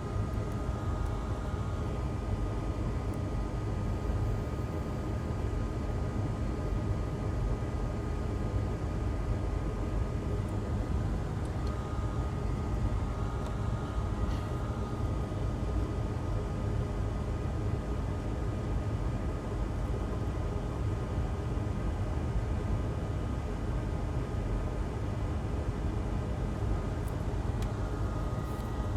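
Steady low background hum with a faint thin whine above it, unchanging throughout; the hand soldering itself makes no distinct sound.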